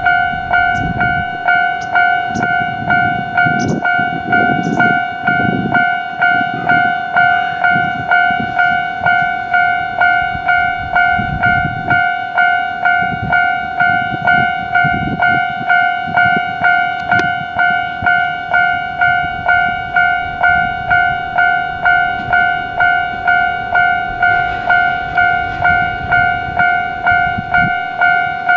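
Level-crossing warning bell ringing in an even, repeating clang, about two rings a second, over the low rumble of an approaching electric train.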